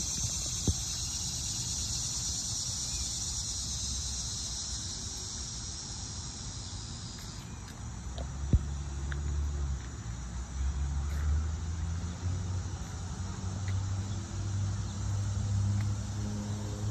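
Insects trilling steadily in a high, continuous chorus, cutting off abruptly about seven seconds in. After that a low, uneven rumble takes over, with a couple of sharp clicks.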